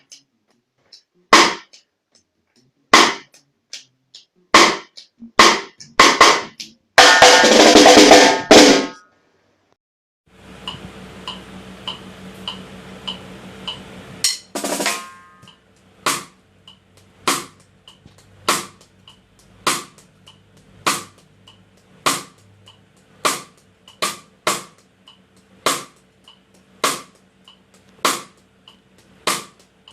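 Snare drum tuned for reggae, struck with single sharp strokes and then a short loud roll. After a brief pause and a few seconds of faint steady hum with light ticks, it settles into a steady beat of one snare stroke about every second and a quarter, with light ticks between the strokes.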